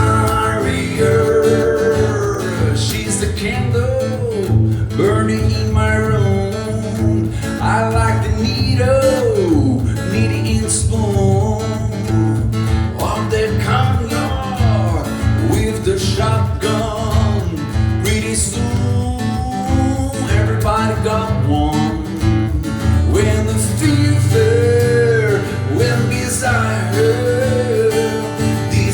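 Acoustic guitar strummed steadily, with a singing voice gliding over it at times.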